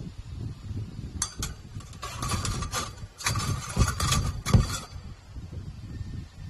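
Metal parts clattering and knocking in a metalworking shop: a run of sharp metallic clinks for about four seconds, with two heavier thumps near the end, over a low steady rumble.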